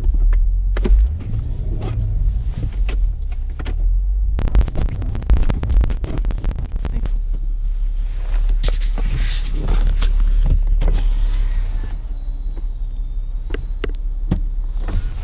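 Acura TL's engine running and revving under load while its tyres spin and crunch in deep snow as the stuck car is rocked free. There is a dense burst of crackling about four seconds in.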